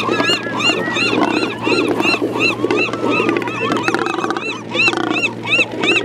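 Double-crested cormorant colony in courtship: many birds calling low at once, over a fast, even run of high chirps about five a second. Two short buzzing calls stand out about four and five seconds in.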